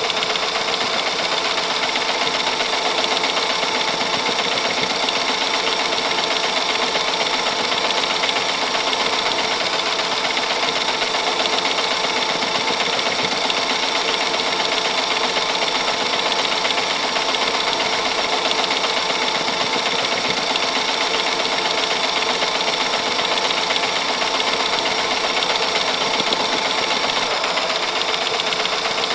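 Film camera reel running: a steady, fast mechanical clatter and whir that keeps an even level without pause.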